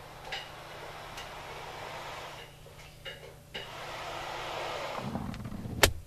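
Rustling handling noise in two stretches with a few light clicks. Near the end comes a low thump and a single sharp click.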